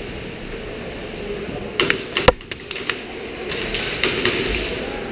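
Airsoft gunfire in a plywood-walled indoor arena: two quick, irregular runs of sharp taps and cracks, about two seconds in and again about four seconds in.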